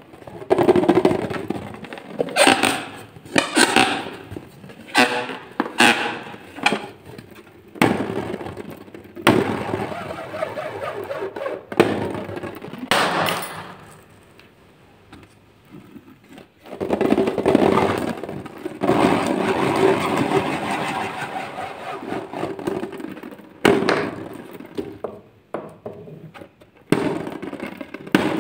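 Hands handling rubber balloons: a run of short, sharp rubbing and crackling noises over the first several seconds, then a longer continuous stretch of rubbing after the middle, with more short noises near the end.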